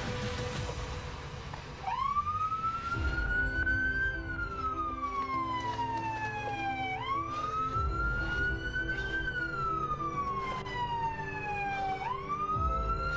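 Police siren wailing. It starts about two seconds in, and each cycle climbs quickly then sinks slowly, repeating about every five seconds.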